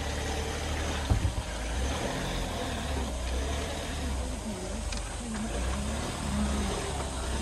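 Steady low rumble of a running vehicle heard from inside, with faint voices in the background and a few knocks about a second in.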